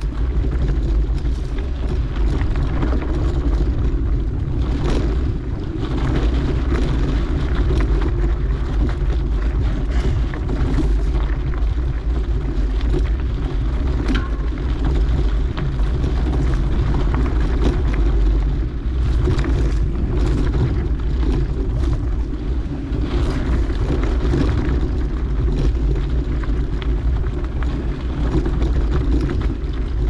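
Mountain bike riding along a dirt trail: a steady low rumble of tyres and wind noise, with frequent small rattles and clicks from the bike.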